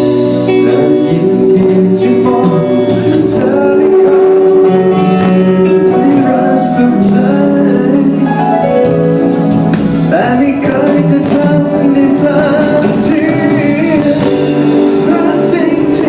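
Music: a Thai pop ballad playing loudly, a held melody line over full band accompaniment.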